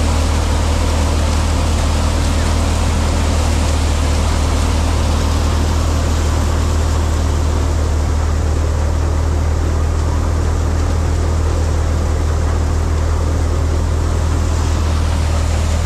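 Electric paddy thresher running steadily: a loud, constant low hum with a rushing noise over it.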